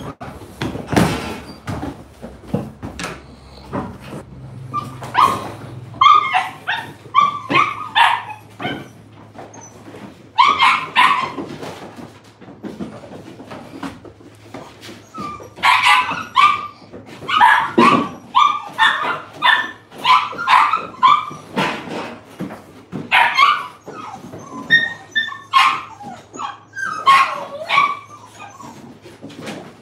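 Puppies barking and yipping in play, in several flurries of short, sharp, high barks.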